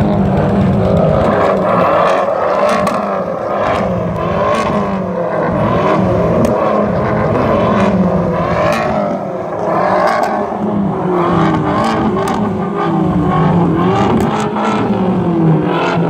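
A group of Fiat 500 Abarths, turbocharged 1.4-litre four-cylinders, revving together. Many engines rise and fall in pitch at once and overlap into a continuous loud din, with a few sharp cracks.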